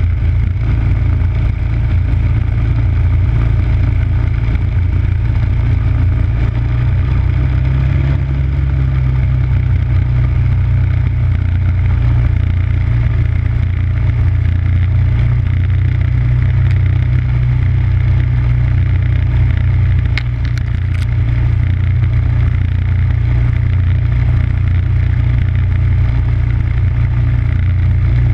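MTD snowblower's 5 hp engine running steadily under load while the machine throws snow, with a few faint brief ticks about two-thirds of the way through.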